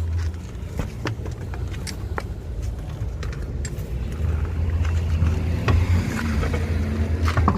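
A car wheel being handled and fitted onto the hub studs, with scattered metallic clinks and knocks, over a steady low rumble.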